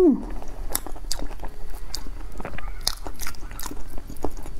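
Close-up wet chewing and lip smacks of someone eating soft, creamy durian flesh, many small irregular clicks. It opens with a brief falling 'mm' from the eater.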